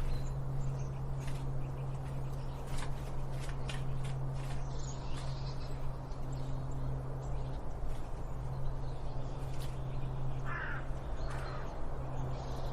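Birds calling, with two short calls about a second apart near the end, over a steady low hum and scattered light clicks.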